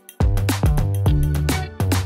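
Background music with a steady beat of drum hits and held bass notes. It drops out briefly at the start, then comes back in.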